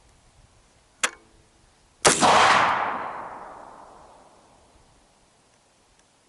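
AR-15 rifle firing. A short, sharp crack comes about a second in, then a much louder shot a second later whose echo rolls away over about two seconds.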